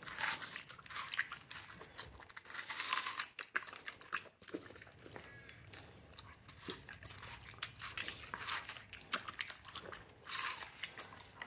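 Chocolate Labrador biting and chewing a hand-held watermelon wedge: wet crunching of the juicy flesh in irregular bursts of bites.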